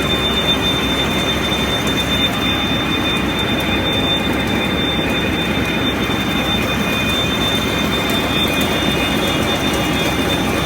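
Hasmak CNC horizontal boring mill running: a steady, dense mechanical wash of noise with a thin, high, steady whine over it.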